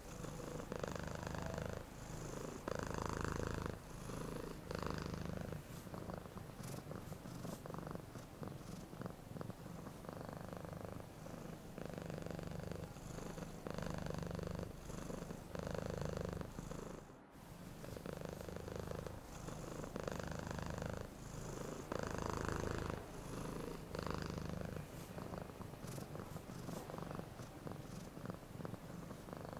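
Domestic cat purring steadily and close up, the purr swelling and fading about every two seconds as the cat breathes in and out.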